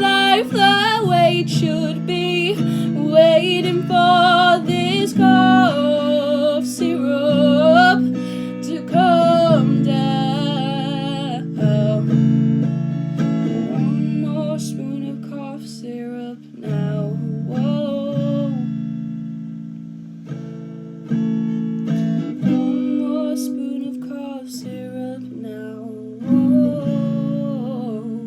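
Acoustic guitar strummed, with a voice singing long wavering notes over it for roughly the first twelve seconds. After that the guitar goes on alone, with chords struck every few seconds and left to ring.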